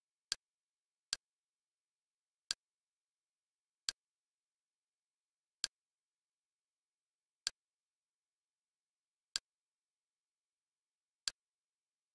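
Kodi menu navigation click sound, heard eight times at uneven intervals of one to two seconds with dead silence in between. Each click marks one step down the TV-show list.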